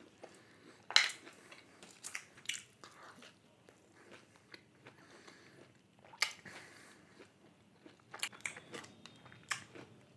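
Close-miked eating: a person chewing, with a string of short, sharp crunching bites. The loudest comes about a second in, and several more fall near the end.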